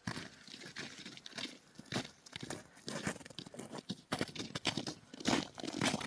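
Footsteps crunching through frozen snow and forest undergrowth in irregular steps, getting louder near the end.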